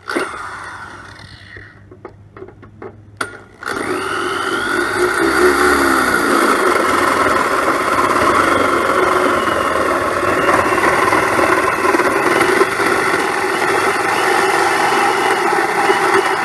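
Corded electric drill cutting a hole through the car's sheet-metal panel: a short run that winds down and a few clicks, then about three and a half seconds in the drill spins up and runs steadily under load.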